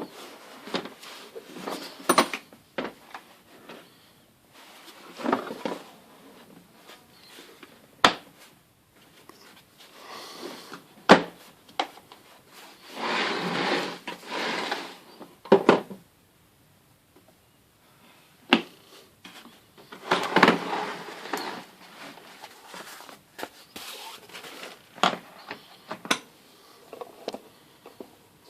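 A tool kit being handled: sharp clicks and knocks at irregular intervals, with two longer rustling, sliding stretches partway through.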